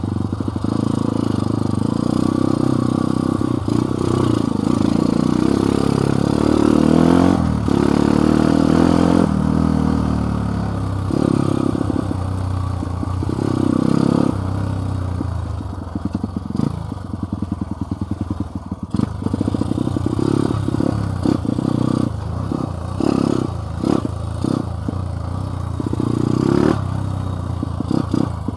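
Motorcycle engine on a ride over a rough dirt trail, the engine pitch rising and falling as the throttle is opened and closed, with short repeated throttle blips in the second half. Light clattering and scraping come from the bike over the bumpy ground.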